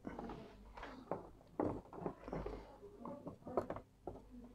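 Faint, scattered little clicks and scratches of hands handling a fine copper wire and a small circuit board.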